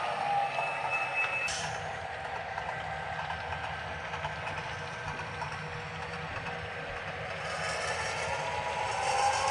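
An HO scale Athearn GP9 model locomotive's Tsunami 2 sound decoder plays a simulated EMD diesel prime mover through the model's onboard speaker as the locomotive switches. The sound grows louder near the end.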